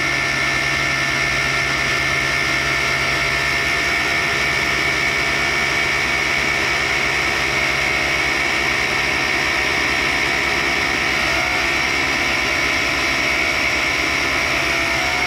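A 1942 Cincinnati universal tool and cutter grinder running steadily, with its thin cutoff wheel set up to saw off carbide. It gives a constant high whine over an even mechanical hum.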